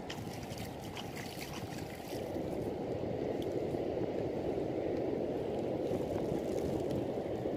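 Steady low rush and gurgle of sea water around a small fishing boat, growing a little louder about two seconds in, with a few faint ticks.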